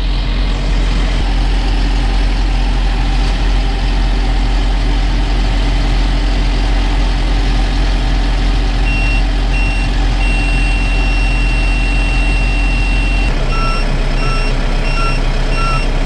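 Tractor engine running steadily while the round baler sits stopped for net wrapping. About halfway through, an electronic warning beeper in the cab starts with a few short beeps, then a long held tone. Near the end it switches to regular two-tone beeps about twice a second as the engine note drops, an alert tied to the failed net-wrap cycle.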